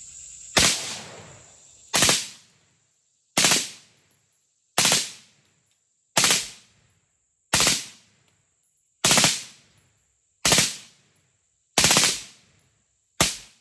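AR-style carbine with a Hoffman trigger kicker firing in short rapid bursts: ten bursts, evenly spaced about a second and a half apart, each a quick cluster of a few shots. The shooter is trying for three-round bursts.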